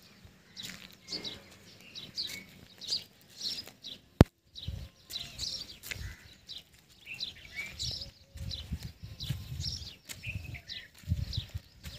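Birds chirping, short high calls repeated about once or twice a second, over low rumbling bursts. A single loud, sharp click about four seconds in.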